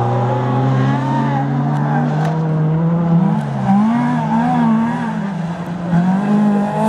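Engines of 1600 cc class autocross cars racing on a dirt track, revving hard: a long climb in pitch, then the revs wavering up and down as the drivers work the throttle through the bends.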